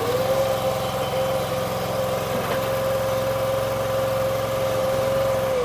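Stand-on tracked mini skid steer's engine running steadily with a high whine over the engine hum. Near the end it shuts off, the whine sliding down in pitch as the machine winds down.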